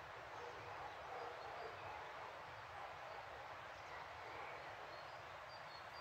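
Steady rush of running water, with faint, short, high bird chirps here and there, more of them in the second half.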